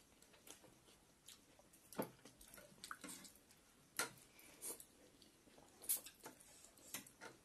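Quiet eating of chicken thukpa noodle soup: short slurps and chewing of noodles, with a few light clicks of spoons and forks against ceramic bowls, coming about a second apart.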